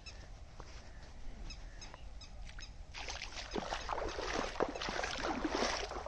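Faint short chirping bird calls, then water splashing and sloshing that starts about halfway through and grows louder.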